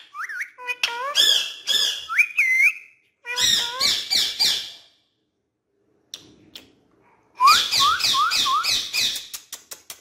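Indian ringneck parrot whistling and chattering in quick chirpy runs. It repeatedly gives short rising whistles, four in quick succession late on, with a pause of about two seconds near the middle.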